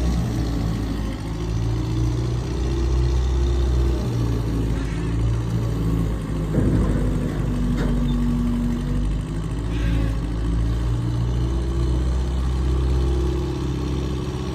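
A large engine running steadily, its pitch shifting a little now and then, with a brief rougher burst about six and a half seconds in.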